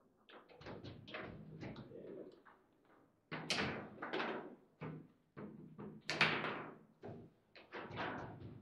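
Foosball table in play: a rapid, irregular run of hard clacks and knocks as the ball is struck by the figures and hits the table walls, and the players slam the rods. The loudest bangs come about three and a half seconds and six seconds in.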